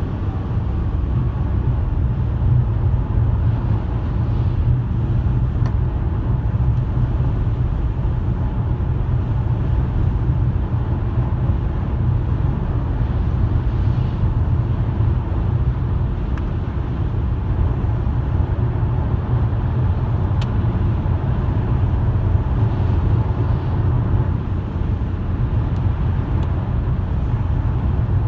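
Car driving along the road: a steady low rumble of engine and tyre noise.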